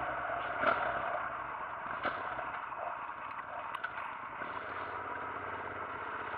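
Motorcycle riding at low speed: steady engine drone mixed with wind rush, muffled as recorded by a camera in its housing, with a few faint knocks.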